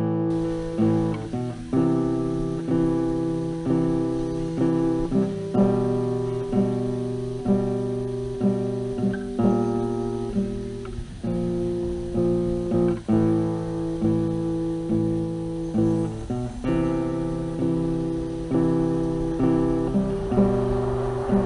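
Music of an acoustic guitar playing strummed chords, a new chord struck about once a second.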